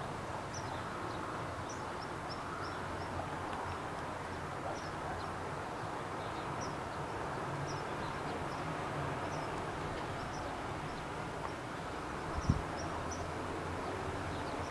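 Open-field background with a low steady hum of distant engines and faint high chirps repeating throughout. A single short, low thud about twelve seconds in.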